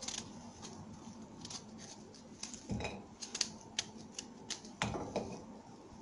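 Knife slicing a whole lemon into rounds, rind and all, over a ceramic bowl: an irregular run of crisp cutting snicks, with two duller knocks about three and five seconds in.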